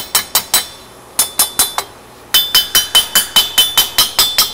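Hammer tapping a tight-fitting metal part down into a steel welding jig to seat it, about five quick taps a second, each with a bright metallic ring. The taps come in three runs, with short pauses just under a second in and about two seconds in.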